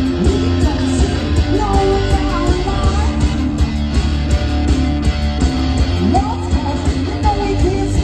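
Live rock music, played loud: an electric guitar and drums from a two-piece band, with the guitar sliding between notes.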